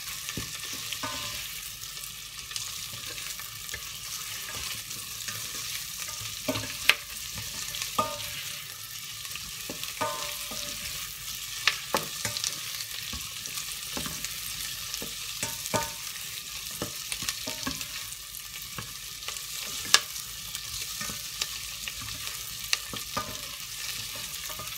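Sliced onion and garlic sizzling in melted butter in a stainless steel saucepan, sautéing until translucent. A spatula stirs them, scraping and knocking against the pan with scattered sharp clicks, three of them much louder than the rest.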